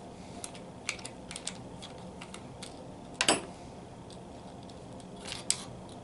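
Small metal clicks and clinks of a screwdriver working the cover-plate screws of a Proto 1/2-inch ratchet and the tool being handled, with a louder metallic clink about halfway in and another near the end.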